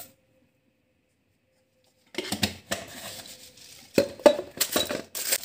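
Kitchen handling noise: a string of knocks, clinks and rustles around a cooking pot, starting about two seconds in after near silence.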